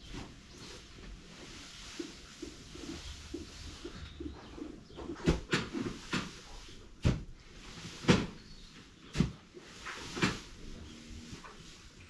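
Sharp knocks and scrapes from mucking out straw bedding in a calf pen. They are light and scattered at first, then come roughly once a second from about halfway through.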